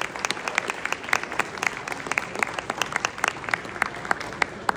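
Audience applauding: a dense patter of many hands clapping that stops near the end.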